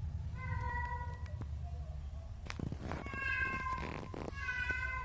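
Newborn kittens mewing: three thin, high, drawn-out mews about a second apart, the last running on to the end. A low purr rumbles underneath through the first half, with a few soft rustles.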